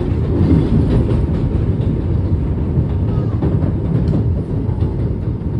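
NYC subway train (1 line) running along elevated track, heard from inside the car: a steady low rumble with faint clicks from the wheels over the rails.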